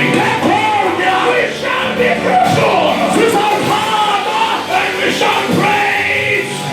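Upbeat church praise music: a band playing while voices sing, with the odd shout.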